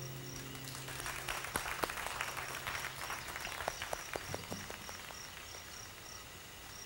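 The last note of a song dies away, then a small audience claps scattered applause for a few seconds. A cricket chirps steadily about three times a second throughout.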